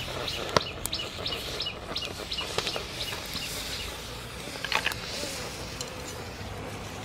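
Small birds chirping in a quick run of short high notes, with a few sharp pops, the loudest about half a second in and a small cluster near five seconds.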